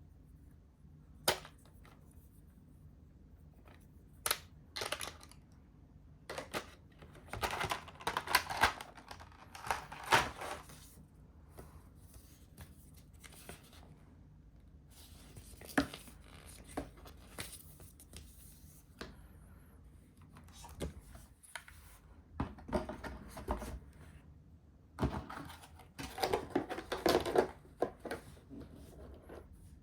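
Unboxing handling sounds: scattered light clicks and knocks, with two stretches of rustling and crinkling as packaging and accessories are moved about, one about a third of the way in and a longer one near the end.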